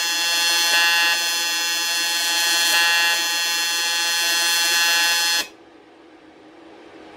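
AC TIG welding arc on aluminium: a loud, steady electrical buzz that swells briefly about every two seconds. It cuts off suddenly about five and a half seconds in as the arc is broken, leaving a faint hiss.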